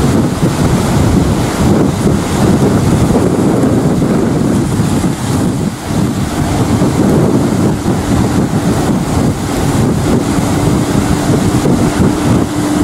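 Twin-engine F-15 fighter jet on landing approach: a loud, continuous rushing roar mixed with wind buffeting the microphone. A steady hum comes in about halfway through and grows stronger as the jet draws near.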